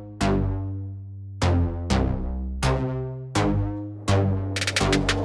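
Background electronic music: a melody of separate struck synthesizer notes that each fade out, with a drum beat and hi-hat ticks coming in near the end.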